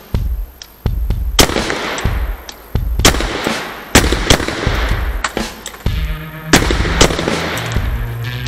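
Black-powder Remington revolver firing repeated shots, roughly a second apart, each with a loud crack and echo, over background music with a heavy beat.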